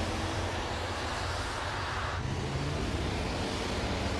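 Audi e-tron Spyder concept car driving by on the road: a steady low drone with tyre and road noise. A rushing noise swells and then cuts off abruptly about two seconds in.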